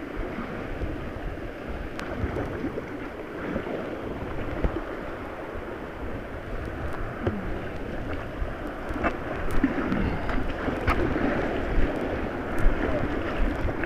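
White-water river rushing and splashing around a kayak, heard through a wet camera microphone buffeted by water and wind. The rush gets louder in the second half, with a few sharp splashes and knocks.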